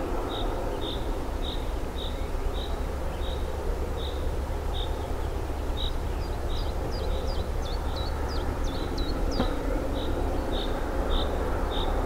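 Two-section 2M62U diesel locomotive, with its two-stroke V12 diesel engines, working under power as a steady low rumble. Over it a bird repeats a short high chirp every half second or so, and a run of quick high slurred notes joins in midway.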